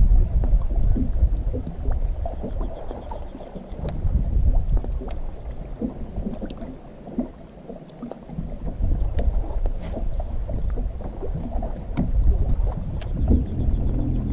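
Wind rumbling on the microphone aboard a bass boat, rising and falling in gusts, with a few faint sharp clicks.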